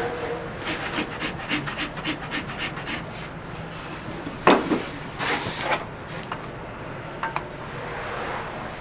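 A farrier's rasp filing a horse's hoof in quick back-and-forth strokes, about four a second, with a single sharp knock about four and a half seconds in, the loudest sound here.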